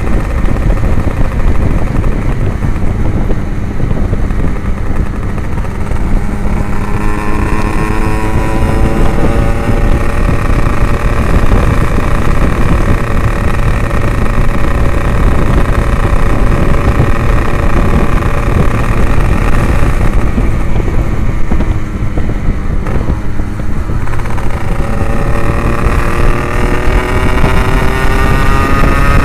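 Yamaha RX-King's 135cc two-stroke single running through an aftermarket Abbox C20 exhaust while riding. The engine note climbs as it accelerates, eases off past the middle, then climbs again near the end, under heavy wind on the microphone.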